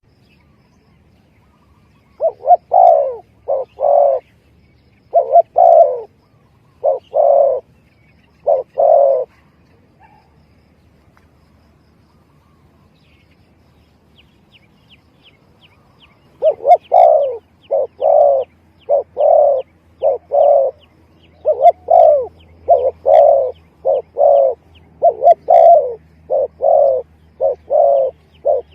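Spotted dove (tekukur) cooing, played as a hunter's lure call: a short bout of coo phrases, a pause of several seconds, then a longer unbroken run of coos. Faint, rapid high chirping runs underneath in the second half.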